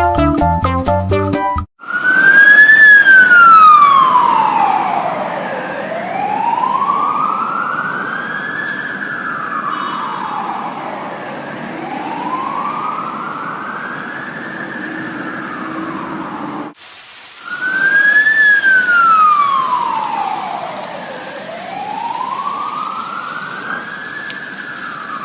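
Fire truck wail siren, rising and falling slowly in long sweeps of about three seconds each way. The siren cuts out briefly about 17 seconds in and starts the same pattern again. A short bit of music plays in the first two seconds.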